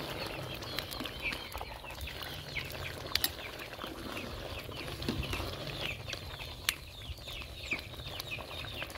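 Birds chirping continually, many short high chirps overlapping, with a few sharp clicks about three seconds in and again near seven seconds.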